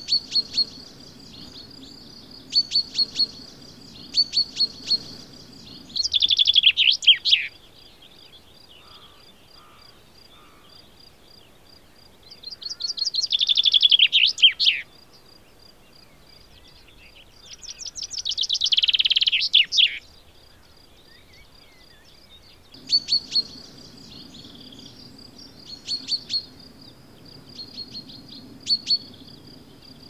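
Common chaffinch song, three times: each phrase is a quick series of notes falling in pitch and ending in a flourish. Between the songs come groups of short, sharp call notes.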